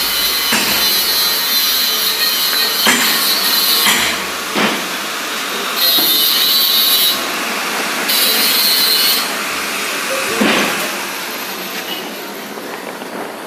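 Construction tool work: a continuous noisy rasp with two louder hissing stretches, each about a second long, partway through, and a few sharp knocks.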